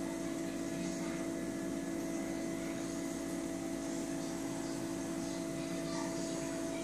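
Steady hum and hiss of running reef aquarium equipment: water pumps and the flow through the tank's plumbing, with a few constant tones that do not change.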